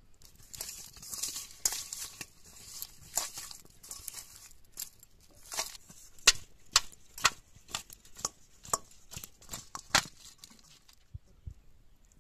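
A plastic sauce sachet crinkling as it is squeezed and handled. About five seconds in come a run of sharp taps and clicks as raw pork pieces are turned by hand in a stainless steel colander.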